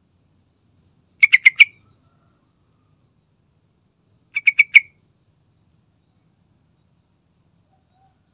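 Yellow-vented bulbul (trucukan) calling: two short bursts of four or five quick notes, one about a second in and another about four and a half seconds in, each lasting about half a second.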